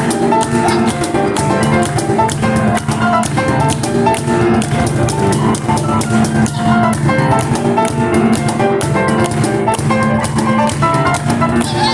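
Live instrumental music: a Kawai piano playing a busy, rhythmic part, driven by fast, dense cajón strikes throughout.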